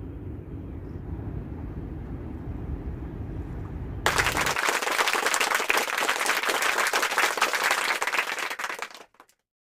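Low, steady rumble of wind on the microphone. About four seconds in, it cuts abruptly to a loud, dense applause sound effect of many rapid claps, which stops suddenly near the end.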